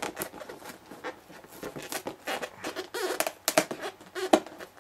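Fingers and nails scratching, tapping and picking at the glued end flap of a cardboard LEGO set box: irregular clicks and scrapes as the flap, stuck down firmly, resists opening.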